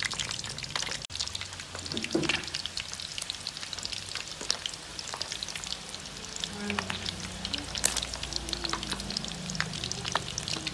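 Chicken feet deep-frying in a wok of hot oil: a steady sizzle thick with crackling pops, with one sharp click a little past the middle.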